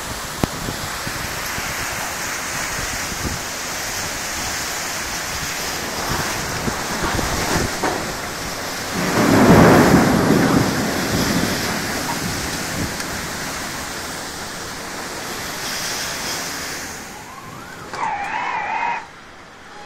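Heavy rain falling steadily in a thunderstorm, with a thunderclap rumbling about nine seconds in, the loudest sound. Near the end a brief wavering tone sounds for about a second.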